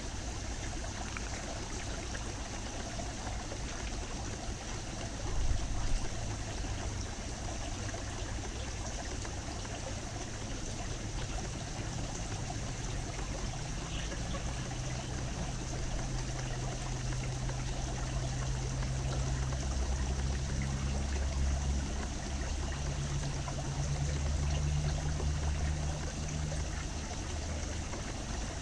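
Steady trickle of running water, with a low hum that comes and goes through the second half.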